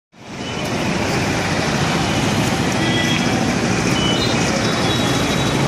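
Busy street noise: a steady traffic rumble with a murmur of voices mixed in.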